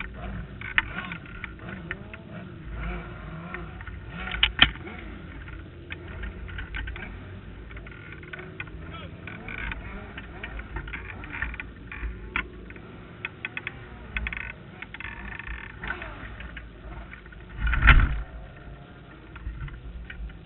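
A sprint car on its side, handled by track crew and set back onto its wheels. Scattered knocks and clicks, then one heavy thump about 18 s in as it comes down. Around it there is a jumble of voices and arena noise.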